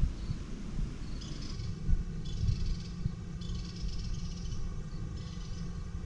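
Wind rumbling and gusting on the microphone, with faint high-pitched chirps recurring every second or so in the background.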